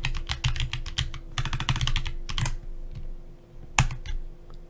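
Typing on a computer keyboard: scattered keystrokes, a quick run of them in the middle, then a few single key presses near the end.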